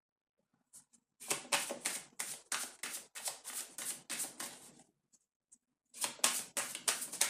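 A deck of tarot cards being shuffled by hand: quick papery slaps about five a second, in two runs with a pause of about a second between them.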